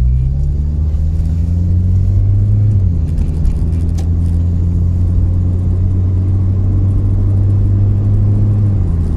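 Volkswagen Golf Mk2's Weber-carburetted 1.6 petrol four-cylinder engine accelerating under load, heard from inside the cabin. Its note rises and then drops as the three-speed automatic gearbox upshifts about three seconds in. It rises again and drops once more near the end, on the shift into top gear.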